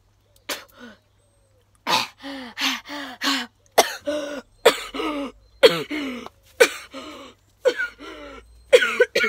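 A boy coughing in a long fit after eating a hot chilli: one cough about half a second in, then from about two seconds in a run of a dozen or so coughs about every half second to a second.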